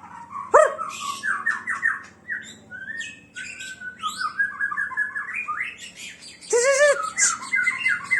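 Songbird singing a fast, varied song of rapid repeated notes, trills and pitch glides, with harsh squawk-like phrases. Two loud arching calls stand out, about half a second in and again near the end.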